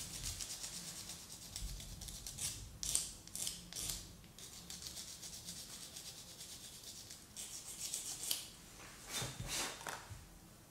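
Small hand file rasping against a small plastic model-kit part in quick back-and-forth strokes, in uneven spells, smoothing the part so that it fits.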